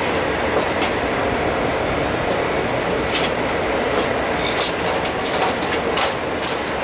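Steady rumbling machinery noise inside a rail maintenance depot, with scattered short metallic clicks and taps from work on an open equipment cabinet.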